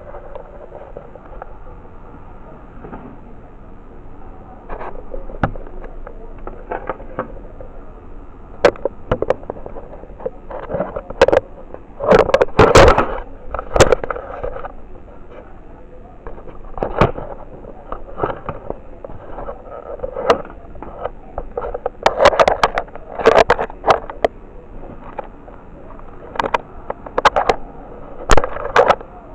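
Handling noise from a small handheld camera: fingers knocking and rubbing on the camera body close to its microphone, making a string of irregular clicks and thumps, loudest in clusters about twelve and twenty-three seconds in.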